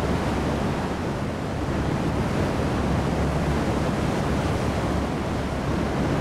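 Storm surf and wind: a steady rush of heavy waves breaking and churning over harbour structures.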